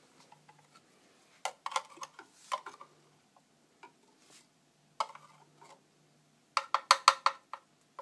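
A metal spoon clinking and scraping against a clear plastic container of ground coffee and the espresso maker's filter basket as grounds are spooned in. The light taps come in two runs; the second, from about five seconds in, is quicker and louder.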